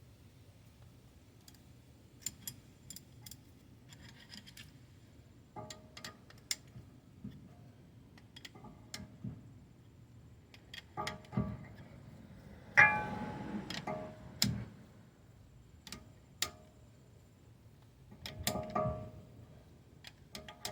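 Hand tools clicking, clinking and ratcheting against metal parts, in irregular sharp knocks with some short ringing, the busiest and loudest stretch a little past halfway.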